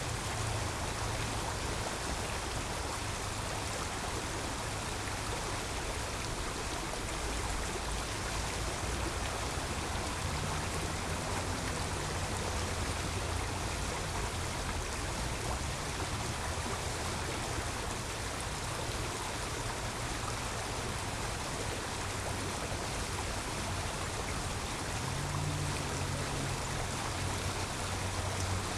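Creek water flowing in a steady rush, with a low rumble of road traffic underneath.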